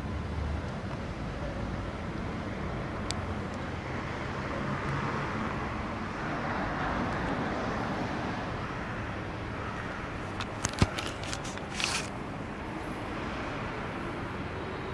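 City street traffic: a steady hum of passing cars, with a quick cluster of sharp clicks or taps about ten seconds in.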